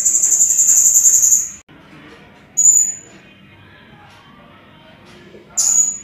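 Serindit (hanging parrot) calling in high, shrill notes: one long trilled call of about a second and a half at the start, then two short sharp calls, one near the middle and one near the end.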